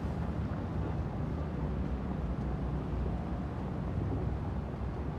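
Steady low engine rumble of a heavy truck and a bus crawling through a muddy, washed-out section of road.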